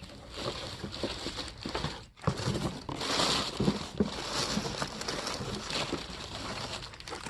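Hands rummaging through packed items and packaging to find a pair of glasses: irregular rustling with small clicks and knocks, busiest about three seconds in.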